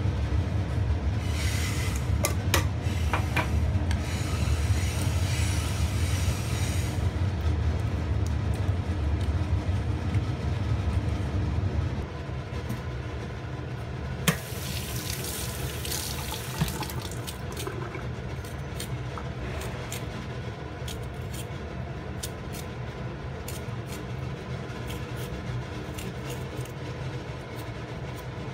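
Water from a tap running and splashing into a stainless steel kitchen sink in short spells, with scattered small knocks and clicks of hands and utensils. A low steady rumble runs under the first twelve seconds or so, then drops away.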